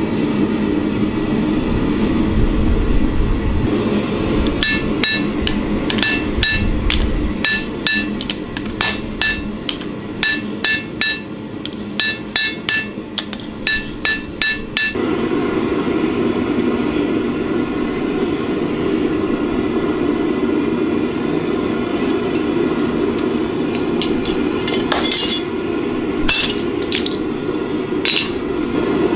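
Hand hammer striking a red-hot damascus steel blade on an anvil, in quick runs of blows with the anvil ringing at each strike, mostly in the first half; a few scattered strikes come later. A steady low roar runs under it and grows louder about halfway through.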